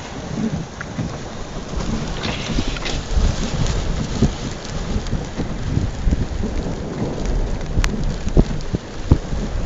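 Rain falling in a thunderstorm, with a low rumble of thunder that grows from about halfway through, and one sharp click about eight seconds in.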